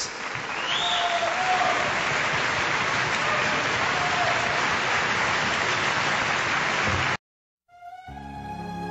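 Large audience applauding steadily, cut off abruptly about seven seconds in. After a brief silence, slow, soft music begins near the end.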